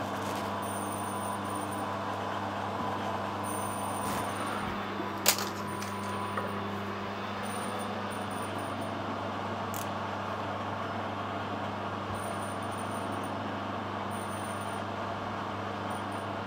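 Steady low workshop machinery hum, with one sharp click about five seconds in.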